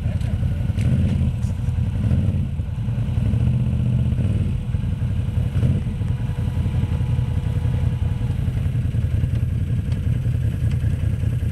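Four-wheeler (ATV) engine running steadily at low revs as the machine crawls over a rock ledge.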